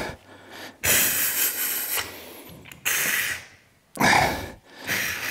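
Four short bursts of hissing noise, each starting suddenly and lasting under about a second, with quieter gaps between.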